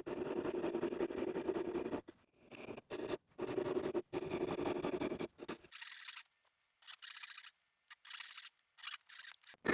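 Hand tools scraping on wood in short runs of strokes, broken by abrupt silent gaps. The runs are longer and fuller in the first half; later there are only brief, thin, high-pitched scratches.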